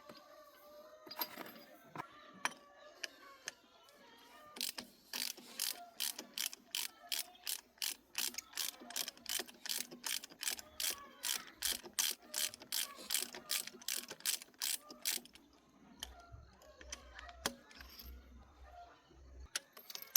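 Hand ratchet wrench clicking in quick strokes, about four clicks a second for some ten seconds in the middle, with scattered metal tool clinks before and after.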